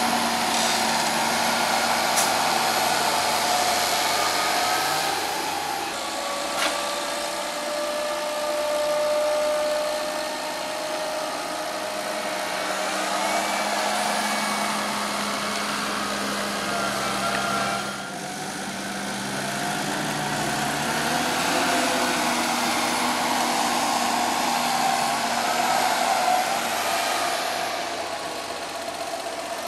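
Fendt tractor engine working under load as it pushes maize up the silage clamp with a buckrake, its note dropping and rising as the load changes. There are two short sharp knocks, one about 2 seconds in and one about 7 seconds in.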